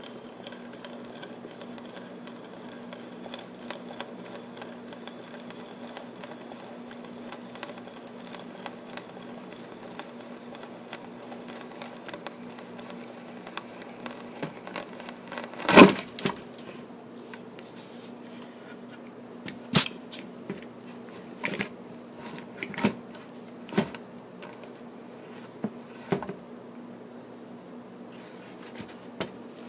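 Sharp ship auger bit boring into a wooden plank: a long run of fast crackling and ticking as the cutters shear out chips, then one loud crunch about halfway through. After that come a few separate knocks.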